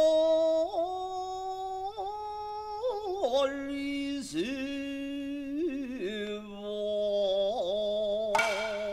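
A kabuki actor's stylized, sing-song delivery: long drawn-out vowels held on one pitch, stepping up and down with a slight waver. A sharp clack sounds near the end.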